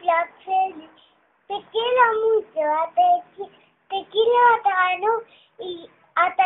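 A young girl singing in short phrases with held notes and brief pauses between them.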